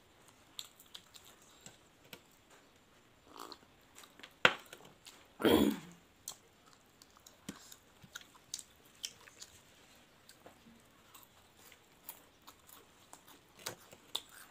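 Close-up eating sounds: soft chewing and biting of fried bora fritters, with scattered small crunches and mouth clicks. A sharp click about four and a half seconds in, then a louder, short rush of noise a second later.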